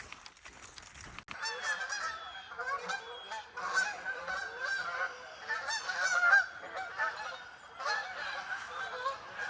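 A flock of geese honking, many calls overlapping, starting suddenly about a second in.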